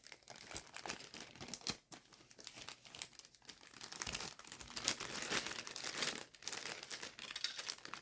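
Plastic packaging crinkling and crackling as it is handled, with many small irregular crackles and ticks.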